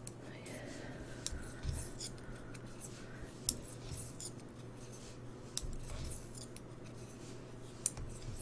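Knitting needles clicking and tapping against each other as stitches are worked, faint, with a few sharper clicks scattered through.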